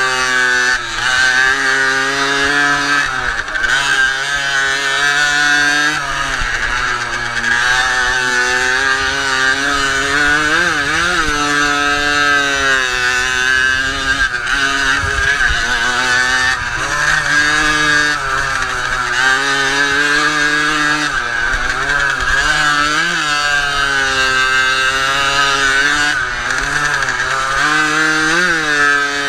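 Tuned Jawa Pionier's 50 cc two-stroke single, heard loud from on board the moped, revving high and dropping back again and again as the throttle is opened and shut.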